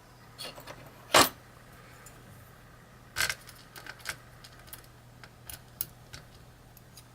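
Scattered small metallic clicks and taps as the pins and tools of a disassembled pin-tumbler lock are handled, with a sharp clack about a second in and another a little after three seconds.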